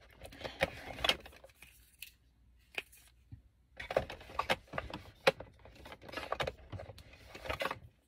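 Makeup products and containers being rummaged through, clicking, knocking and clattering against one another in two busy spells with a quieter lull in between.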